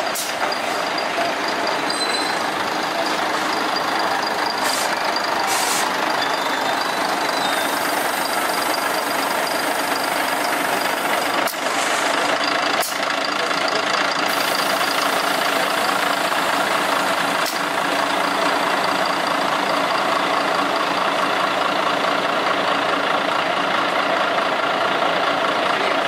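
Diesel engine of an Inca Rail passenger railcar idling at the platform, a steady drone with two brief clicks about halfway through.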